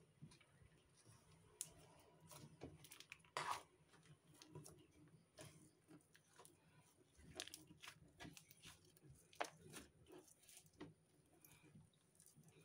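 Pink glitter slime with water beads mixed in, kneaded and stretched by hand: faint, irregular sticky clicks and crackles, with a louder snap about a third of the way in and another near three quarters.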